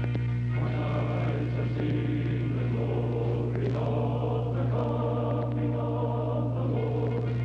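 Background music: a choir singing slow, sustained chords that change every couple of seconds, over a steady low hum.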